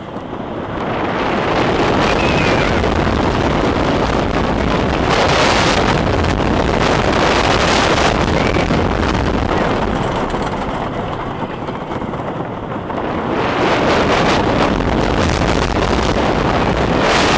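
Wooden roller coaster train running along its wooden track: a loud rush of wind on the microphones over the rumble of the wheels on the track. The noise swells about a second in, eases for a few seconds past the middle, then builds again.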